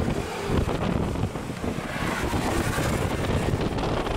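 Strong wind blowing across the microphone, an uneven rumbling noise heaviest in the low end.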